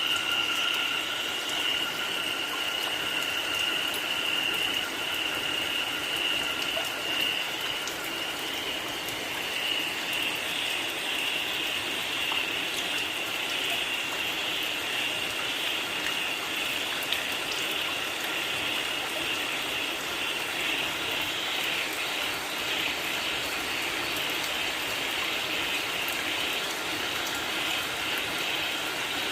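Steady rain falling, with a continuous chorus of frogs calling.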